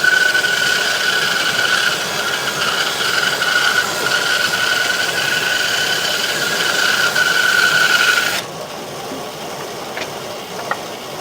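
General 490 15-inch bandsaw resawing a board into half-inch slices: a steady high whine with the rasp of the blade through the wood. About eight seconds in it cuts off abruptly, leaving a quieter steady noise with a few light clicks.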